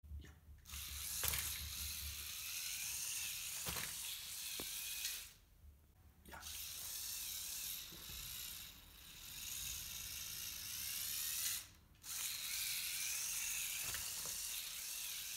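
LEGO Technic 6x6 All Terrain Tow Truck (42070) driving on its electric motor, a steady high whir of motor and plastic gear train with faint clicks. It stops twice, for about a second around five seconds in and briefly just before twelve seconds.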